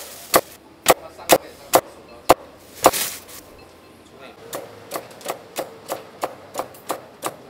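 Cleaver chopping crispy roast pork: about seven heavy chops in the first three seconds, then a run of lighter, quicker chops at about three a second.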